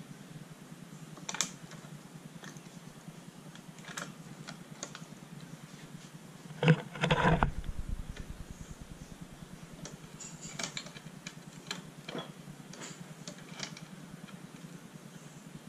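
Light clicks and knocks of metal bicycle-axle parts, a universal joint on a drive shaft, being handled and moved on a workbench. A louder run of knocks lasting about a second comes about seven seconds in.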